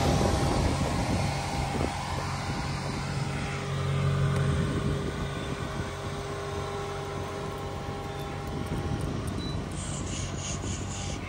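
Maserati GranTurismo's V8 idling steadily, a low hum with a constant pitch. A few brief rustles come near the end.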